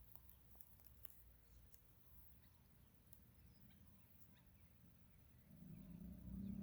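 Quiet desert ambience with faint, scattered bird chirps and calls and a few light ticks over a low rumble. A low hum swells near the end.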